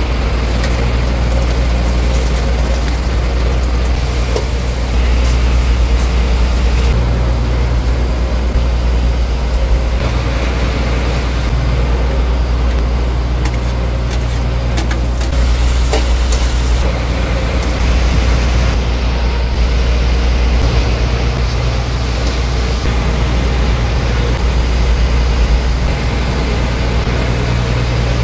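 Fishing boat's engine running steadily under way, a deep even drone, with a few light clicks of a ladle against the cooking pots.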